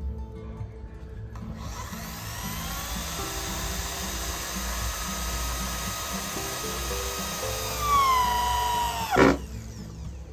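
Electric drill starts about a second and a half in, runs at a steady speed with a high whine, then slows and winds down sharply about nine seconds in, over background music.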